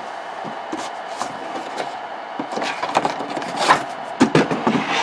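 A dollhouse wall panel being slid out of its cardboard box: a series of light scrapes and knocks against the cardboard, clustered around the middle and again near the end.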